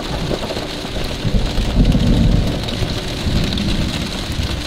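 Thunderstorm at night: steady rain falling, with a low rumble of thunder swelling about a second in and dying away over the next two seconds.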